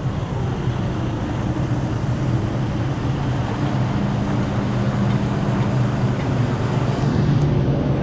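An engine idling steadily: an even low hum that holds the same pitch throughout.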